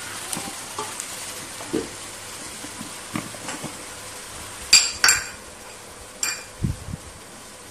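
Chicken pieces frying gently in a stainless steel pot, a steady low sizzle as the meat starts to release its own water. Sharp metallic clinks against the pot ring out twice in quick succession about five seconds in and once more a little later, with soft knocks and thumps around them.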